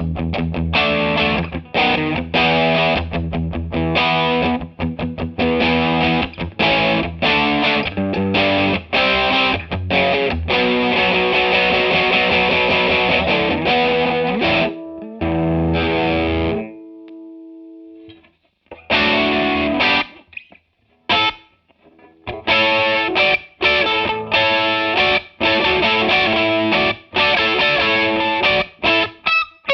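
Electric guitar with a driven tone played through a TC Electronic Corona Mini chorus pedal: short, rhythmic chopped chords, then a held chord rings out and fades about halfway through. After a short gap the choppy chord playing resumes.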